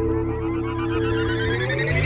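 Background music: a held chord with a tone sweeping steadily upward over it, building up.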